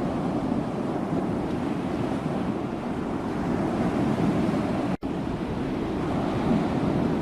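Sea waves washing steadily as a continuous surf rush, with a momentary dropout about five seconds in.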